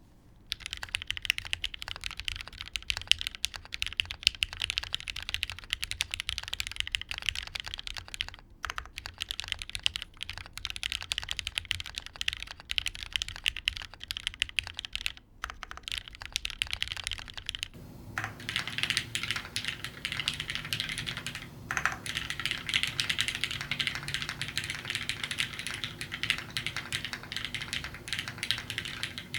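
Rapid, continuous typing on a Gok Type K gasket-mounted custom mechanical keyboard. It has broken-in, lubed Cherry MX Black linear switches, an aluminium half plate and GMK keycaps. The typing pauses briefly twice. About two-thirds of the way through, a steady low hum comes in as the recording switches to the camera's built-in microphone.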